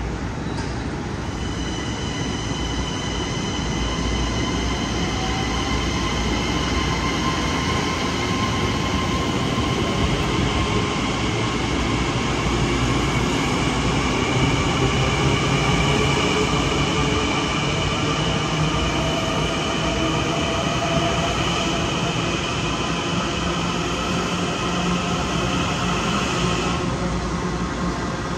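Long Island Rail Road electric multiple-unit train moving with its wheels squealing: several steady high-pitched tones start about a second in and cut off near the end, over the steady rumble of the cars.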